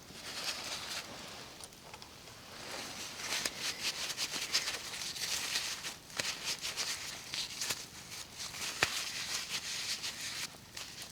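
Wood campfire crackling, with irregular sharp pops and snaps over a soft steady hiss.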